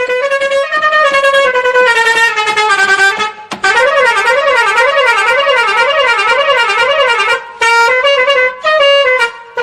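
Musical air horn playing a tune: a run of short stepped notes, then a warbling tone that swings up and down about twice a second, then a few more short notes.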